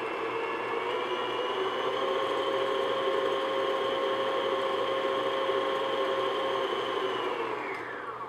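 Stand mixer motor running with a steady whine, its flat beater mixing melted chocolate into a thick egg-yolk batter. The pitch rises slightly about a second in, and near the end the motor winds down and stops.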